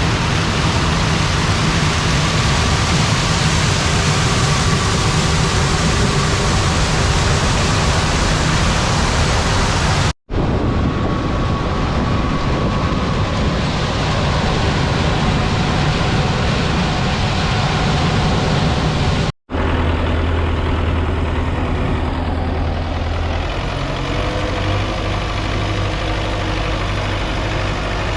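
Farm tractor's diesel engine running steadily. The sound breaks off for an instant twice, about ten and nineteen seconds in. After the second break the engine has a stronger low hum.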